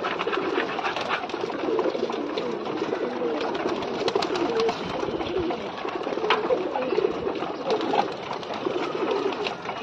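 Domestic pigeons cooing continuously, several calls overlapping in a steady low warble, with a few faint clicks.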